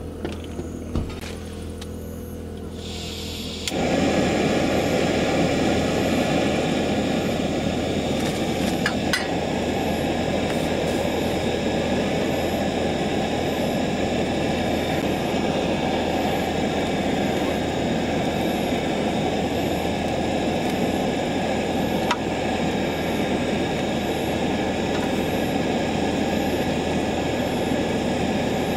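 Yamaha Bolt V-twin motorcycle: a steady low hum for the first few seconds, then a sudden jump to loud, steady engine and wind noise as the bike runs at speed.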